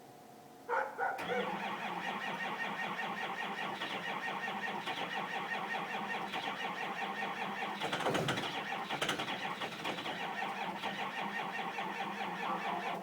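A 2005 Ford Powerstroke 6.0 L V8 turbodiesel cranking on its starter for about twelve seconds without catching, a hard cold start after the block heater lost power. The cranking begins about a second in and stops near the end.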